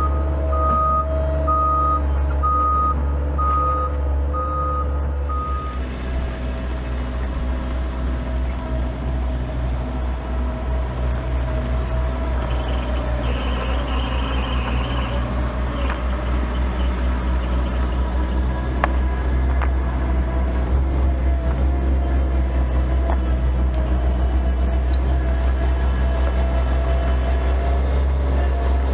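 Compact track loader's diesel engine running with its reverse alarm beeping steadily; about six seconds in the beeping stops and the engine keeps running with a low hum. A few faint clacks of stone come later.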